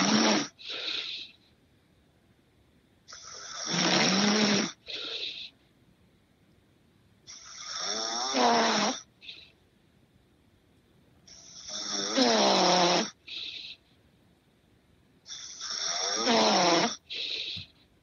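A man snoring in steady, regular breaths, one snore about every four seconds; each long rasping snore is followed by a shorter second puff.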